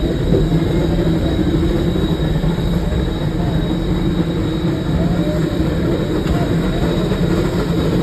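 Railroad train rolling along the track, heard from aboard: a steady rumble with a thin, constant high whine.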